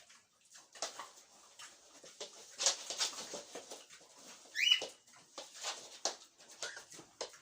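Micropigs eating noisily, many quick irregular chomping and smacking sounds, with one short rising squeal about four and a half seconds in.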